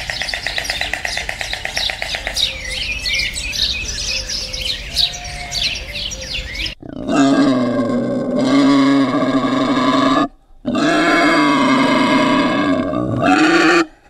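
Birds chirping and trilling in a busy chorus, then, after an abrupt change about halfway, an animal giving two long calls of about three seconds each, fairly steady in pitch.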